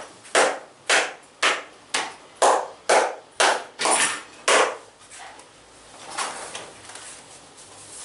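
Percussive massage strokes: hands slapping the body in a steady rhythm of about two strikes a second, about ten in all, stopping a little past halfway, followed by a softer, noisier sound.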